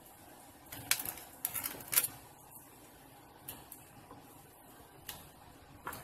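Sharp snaps and clicks of king crab leg shell being cut with kitchen scissors and cracked apart by hand, close to the microphone. A quick run of snaps comes about a second in, then a few single clicks.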